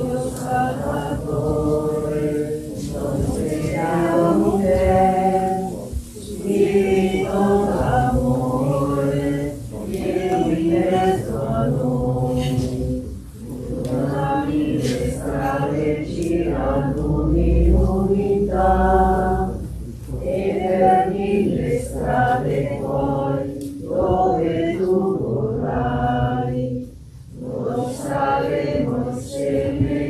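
A choir singing a slow hymn in long sustained phrases, with short pauses between lines.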